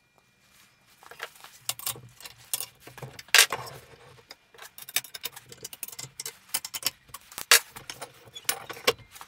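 Metal clanks, clicks and rattles of a Record No. 4 bench vise on a steel tilting base as it is tilted by hand into different positions. The loudest clanks come about three and a half and about seven and a half seconds in.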